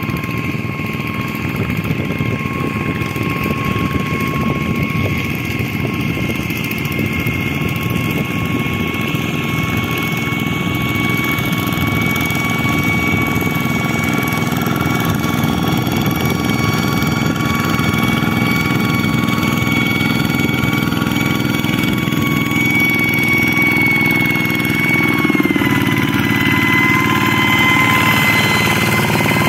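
Single-cylinder diesel engine of a two-wheel walking tractor running steadily under load as it drags its leveling gear through flooded paddy mud, a rapid chugging with a steady high whine over it. Near the end the whine dips slightly in pitch and the engine gets a little louder.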